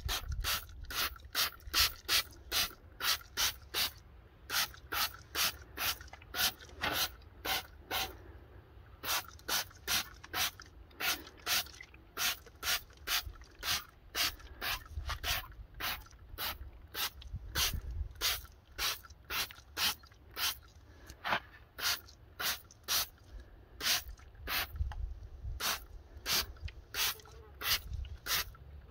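Hand trigger sprayer pumped over and over, about two squeezes a second with a few short pauses, each pull giving a click and a short spritz of wheel cleaner onto an alloy wheel.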